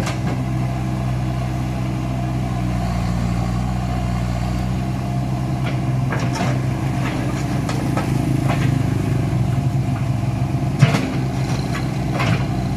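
Komatsu hydraulic excavator's diesel engine running steadily, with scattered sharp knocks and clatters from about halfway through as the machine works.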